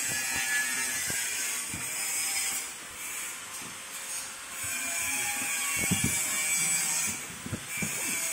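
Packing noises: cardboard and clear plastic stretch wrap being handled and wound around a boxed machine, a continuous crinkling, hissing rustle with a few dull knocks and thuds in the second half.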